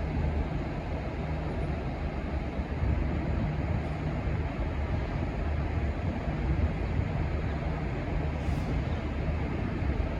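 V/Line N class diesel-electric locomotives running with a steady low engine drone; no horn sounds.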